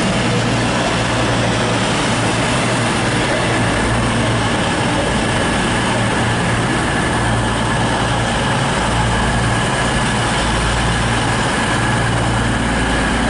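CrossCountry Class 221 Super Voyager diesel multiple unit idling at the platform, its underfloor Cummins diesel engines giving a steady low hum, with a faint steady high whine above it.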